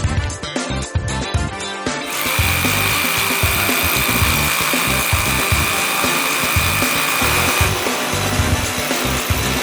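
Background music with a beat. About two seconds in, a Powerbilt PBT-RH-20A 1100 W SDS rotary hammer drill starts running: a loud, dense noise with a steady high whine over it. The whine stops near the end while the tool's noise carries on in a changed tone.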